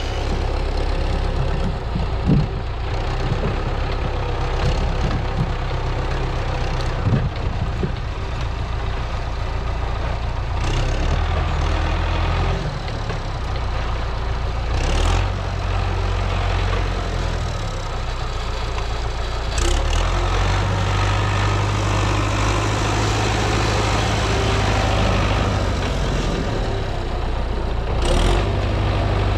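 MTZ-82 tractor's diesel engine running, its note stepping up and down several times as the throttle or load changes, with a few short clanks.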